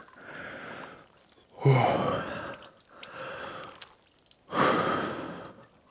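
A man breathing slowly and heavily while sitting in ice-cold water. Soft breaths alternate with two loud ones, about a second and a half in and again past four seconds.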